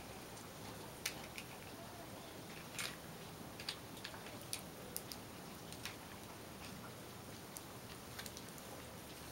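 Faint, scattered plastic clicks and taps at irregular intervals as batteries are fitted into the handle of a battery-powered knot-cutting pet comb.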